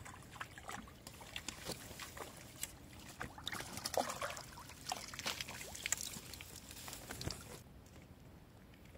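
A hooked tilapia splashing and thrashing at the water's surface as it is drawn to the bank and netted: a string of irregular splashes and slaps that stops about seven and a half seconds in.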